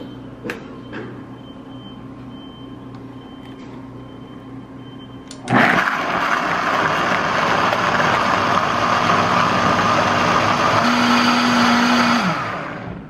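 Blender grinding almonds and water into almond milk. It starts suddenly about five and a half seconds in, runs steadily at full speed for about seven seconds, then winds down near the end. Before it starts there is only a low background with a couple of clicks.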